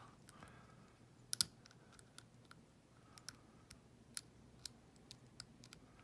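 Faint, irregular metallic clicks from a lock pick working the pin stack inside an old brass Ruko lock cylinder while single-pin picking under tension. The loudest is a quick double click about a second and a half in.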